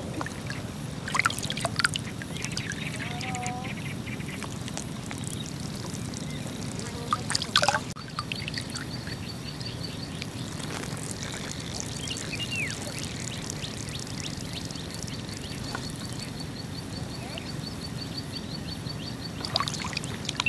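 Water sloshing and lapping close around an angler floating in an inner tube, with short louder splashes about one to two seconds in and again at about seven and a half seconds. From about eight seconds in, a high, fast, even ticking trill runs in the background.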